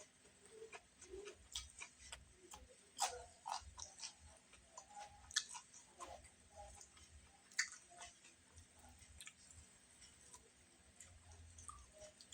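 Close-up eating sounds: chewing with scattered small clicks and taps, and three sharper clicks about 3, 5 and 7.5 seconds in.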